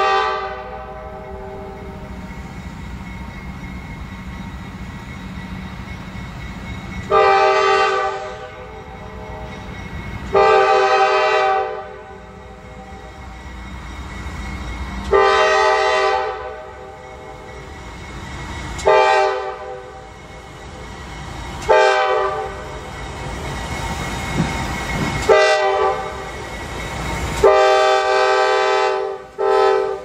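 Air horn of CSX GE diesel locomotives on a light engine move, sounded for a grade crossing as they approach: about seven blasts, long and short, the last long one near the end. Between blasts the diesel engines run with a steady low rumble that grows louder as the locomotives near.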